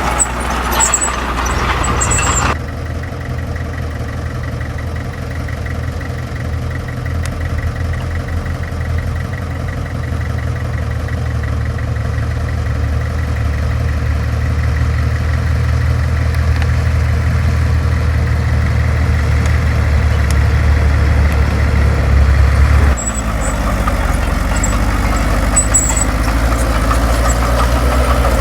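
Heavy diesel engine of earthmoving machinery running with a deep, steady rumble that slowly grows louder. The sound changes abruptly about two and a half seconds in and again near the end, to a brighter, clattering machine noise.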